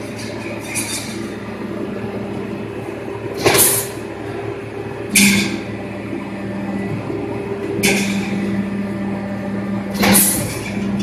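Fence mesh bending machine running with a steady motor hum, its low tone strengthening partway through. Four short, loud hisses break in, about every two and a half seconds.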